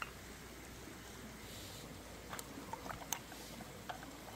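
A wooden stick clicking and scraping against snail shells as the meat is pried out, with a few sharp clicks in the second half, over the steady hiss of a flowing stream.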